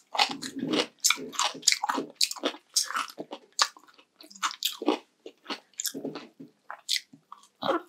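Close-up chewing and crunching of crispy fried pork, with many quick, irregular crunches.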